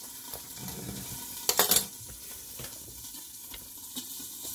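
Chicken sizzling in a lidded frying pan on low heat, a steady faint hiss. A short, louder handling noise comes about one and a half seconds in.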